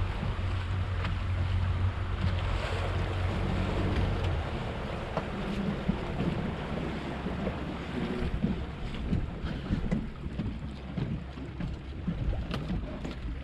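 Wind buffeting the microphone aboard a small fishing boat at sea, with water washing against the hull and a low engine hum that drops away about four seconds in.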